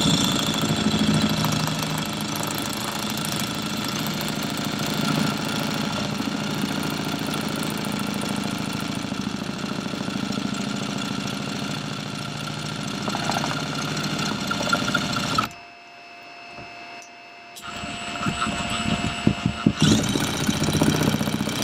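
Power drill running steadily, its bit grinding and scratching an angled groove into a kayak's plastic deck, used like a mill to start the hole. The drill stops about three-quarters of the way through, then runs again in short spurts near the end.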